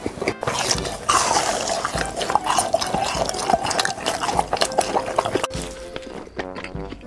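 ASMR eating sound effects: wet chewing and crunching full of small clicks. About five and a half seconds in, this gives way to a few notes of music.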